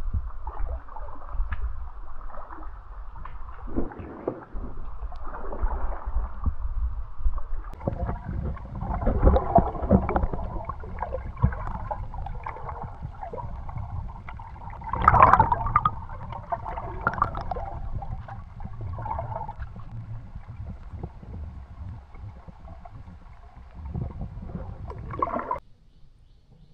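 Kayak paddles working through creek water, with gurgling and sloshing around the hull under a low rumble. It is louder around nine seconds in and again about fifteen seconds in, and stops abruptly near the end.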